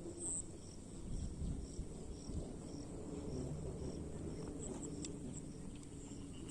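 Outdoor ambience with an insect chirping evenly about twice a second over a steady high drone and a low rumble.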